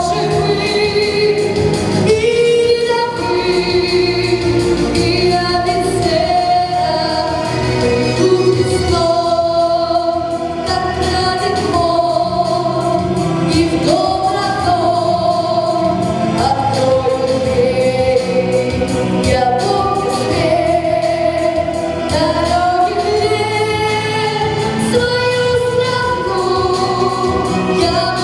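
Music: a song with voices singing a melody in long held notes over instrumental backing.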